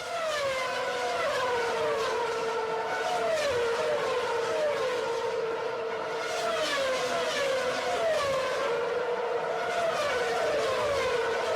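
Engine whines falling in pitch again and again, about once a second, each settling into a steady hum, like cars speeding past one after another.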